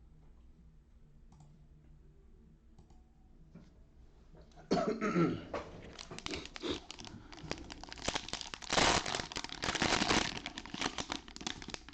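A cough about halfway through, then dense crinkling and tearing of the plastic wrapping on trading-card packs as they are opened, loudest a little before the end.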